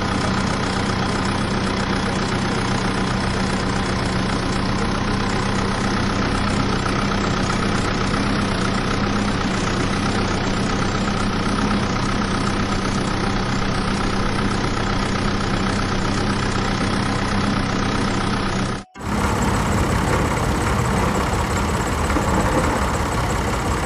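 Engine idling steadily with an even low hum. About nineteen seconds in it cuts off abruptly and a rougher, noisier running sound takes over.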